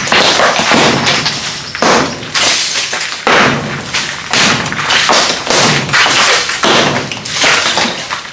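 Hammer blows against a cement and brick wall, roughly one a second, each followed by broken masonry crumbling and clattering down.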